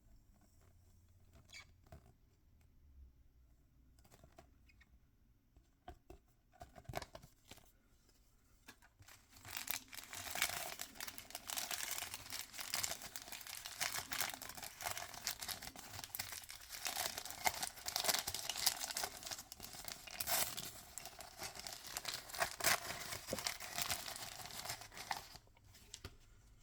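Scattered small handling clicks and taps, then from about nine seconds in a long stretch of crinkling and tearing as mystery-toy packaging is torn open and unwrapped, ending shortly before the close.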